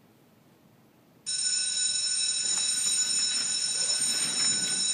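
Electric school bell ringing steadily, starting suddenly about a second in after near silence, signalling the end of class.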